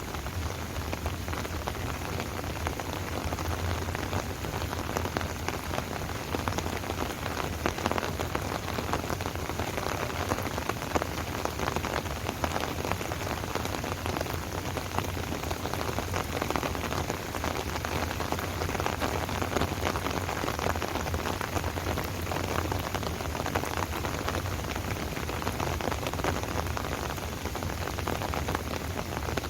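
Steady rain falling: an even hiss of countless small drop ticks that holds without let-up.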